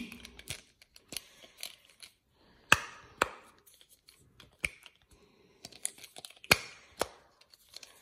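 Imitation Simpl Dimpl silicone fidget toy with its two bubbles pushed through by thumb, giving about a dozen irregular soft pops. The strongest come near three seconds in and again about six and a half seconds in. The imitation's softer silicone gives a lower, less crisp pop than the original.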